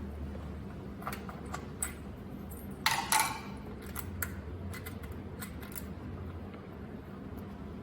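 Light clicks and clatter of hard parts being handled, the loudest a sharp clatter about three seconds in, over a steady low hum.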